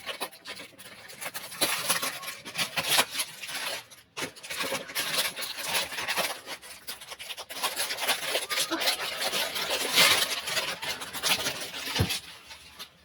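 Packaging being handled and unwrapped: irregular rustling and crinkling with many small crackles, stopping near the end.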